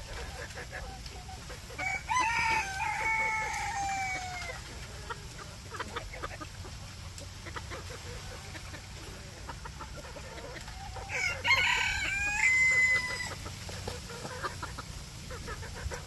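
Rooster crowing twice, about nine seconds apart. Each crow lasts about two and a half seconds and ends in a long, drawn-out falling note.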